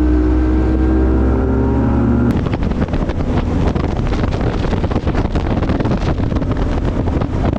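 Bass boat's outboard motor running at a steady high pitch while the boat runs at speed. About two seconds in, the engine tone gives way to a loud rush of wind buffeting the microphone.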